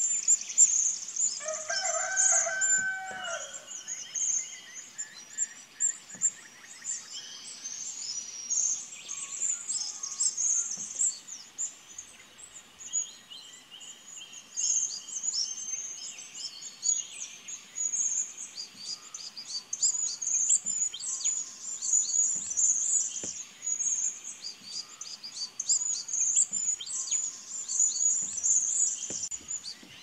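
Morning bird chorus: many small birds chirping and twittering, with dense, high-pitched calls overlapping throughout. About two seconds in, a lower, longer call lasting roughly two seconds stands out.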